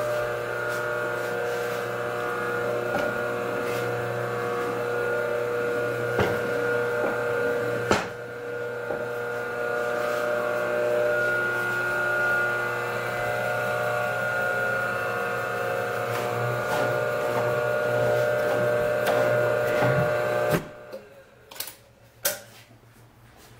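Berkel X13E Plus meat slicer running: its motor and spinning blade make a steady hum with a few fixed whining tones, with an occasional click. The running sound cuts off near the end, followed by a couple of knocks.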